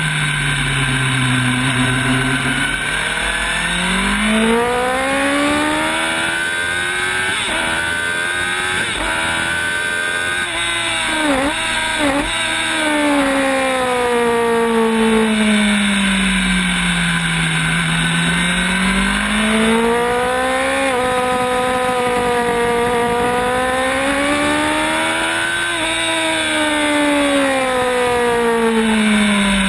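Sport motorcycle engine heard from on board while lapping a track, the revs climbing and falling in long sweeps as the bike speeds up and slows for corners. About halfway through the pitch dips sharply twice in quick succession.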